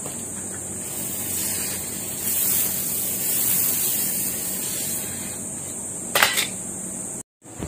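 Water from a garden hose spraying and running over a wet tiled floor, a steady hiss that swells for a few seconds in the middle. About six seconds in there is a sharp knock as the camera is handled.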